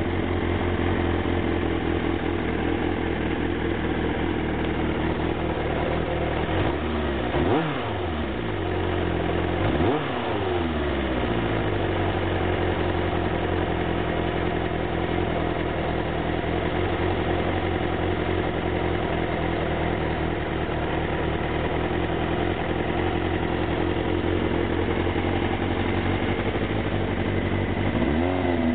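Suzuki Bandit 400's inline-four engine idling steadily after a carburettor adjustment. The throttle is blipped briefly about seven and ten seconds in, and again near the end.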